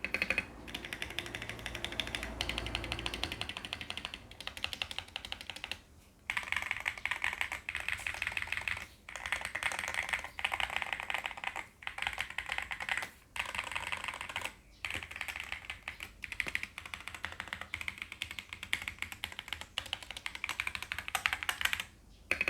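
Fast typing on a HolyTom 72 mechanical keyboard with lubed MMD Holy Panda tactile switches and XDA-profile PBT keycaps, in a case with foam and tape mods. The keystrokes come in quick runs of clacks, broken by brief pauses every few seconds.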